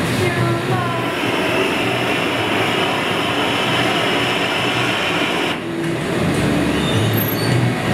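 Steady roar of a glassblower's handheld gas torch playing its flame on a large blown-glass vase held on the blowpipe, over the steady rush of the hot shop's furnace burners.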